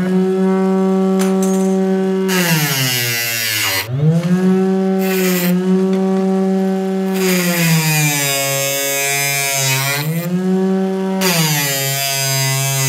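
Homemade table saw's 12 V 775 DC motor running with a steady whine while a steel bicycle spoke is cut on its metal-cutting blade. Three times, about two, seven and eleven seconds in, the whine sags in pitch under the load and a loud metal grinding noise rises as the spoke is pressed into the blade, then the motor speeds back up.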